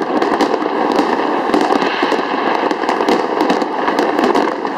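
Fireworks display: many sharp cracks and bangs from bursting shells in quick succession, overlapping into one dense, continuous din.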